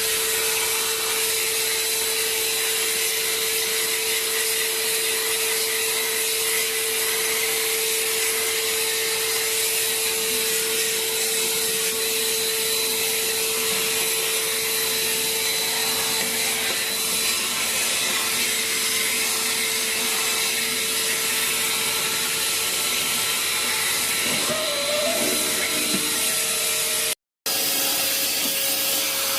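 Vacuum cleaner running steadily: a constant airy rush with a steady motor whine. It cuts out briefly near the end, and when it comes back the whine is slightly higher.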